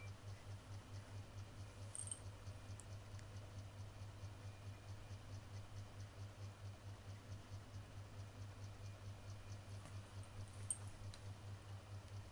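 Quiet room tone: a low hum pulsing in an even rhythm, with faint regular ticking and two small clicks, one about two seconds in and one near the end.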